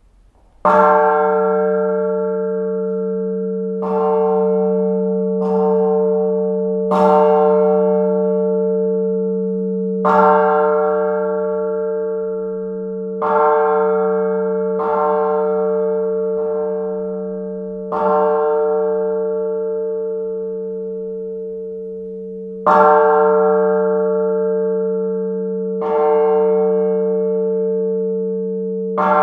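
La Piagnona, the historic church bell of San Marco in Florence, tolling: about eleven strikes at uneven intervals of roughly one and a half to four and a half seconds. Each strike rings on in a long, steady hum that fades slowly until the next strike.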